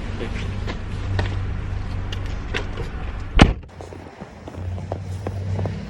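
Car engine idling with small clicks and handling noises, then one loud thump of a car door shutting about three and a half seconds in.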